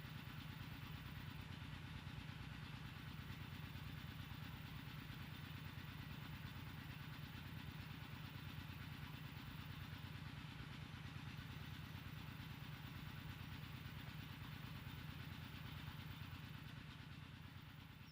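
A small engine running steadily at an even speed, fading away near the end.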